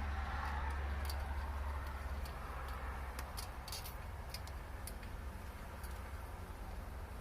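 Faint, irregular small clicks and ticks, scattered a few times a second, over a steady low rumble.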